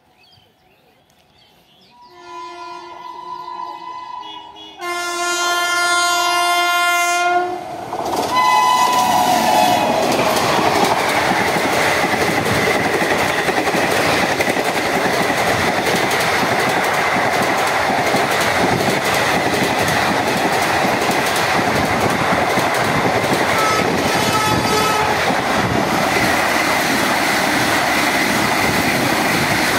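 Train horn sounding two long blasts, the second louder, then a short one, as an express approaches the level crossing. Then the express's coaches pass close by with a loud, steady rumble and wheel clatter over the rail joints. A fainter horn sounds about three-quarters of the way through.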